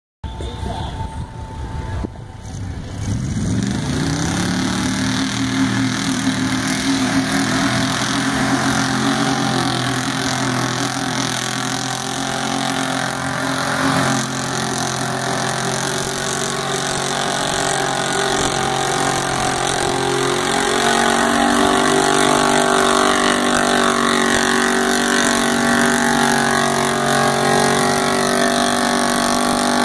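Square-body pickup truck's engine working hard through a mud bog pit: it revs up about three seconds in, runs steadily under load, then climbs higher in pitch about twenty seconds in.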